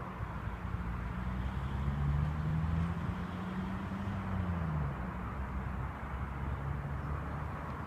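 A vehicle engine running with a steady low hum that swells a little about two seconds in and drops in pitch near five seconds. No gunshot is heard.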